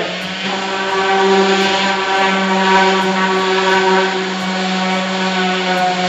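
Electric orbital sander running steadily on the wood of a beehive box: an even motor hum over the hiss of the pad sanding down rough spots.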